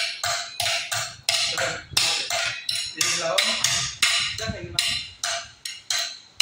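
A toddler banging a metal fork on a restaurant table, a steady run of sharp, ringing clinks at about three strikes a second.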